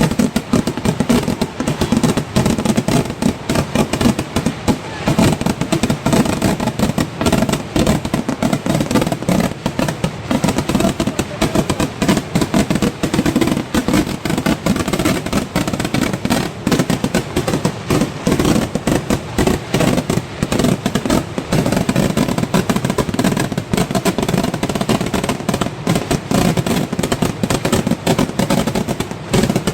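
Festival fireworks barrage: a dense, unbroken run of rapid firecracker bangs.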